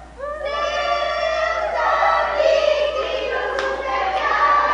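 A group of young voices singing together in unison, loud and high-pitched.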